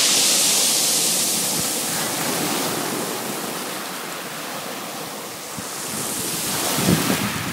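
Small Adriatic waves washing up a fine-pebble shoreline. The foamy surge hisses loudest at the start and fades as the water spreads out and draws back. Near the end there are low buffets of wind on the microphone.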